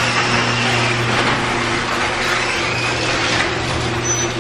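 Garage door opener motor running with a steady hum and an even mechanical rush as the door goes up.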